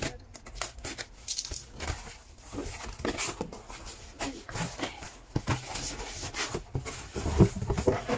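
Cardboard shipping box being opened by hand: its flaps and a boxed item inside scrape, rustle and tap irregularly, with a louder thump about seven seconds in as the cardboard gift box is lifted out.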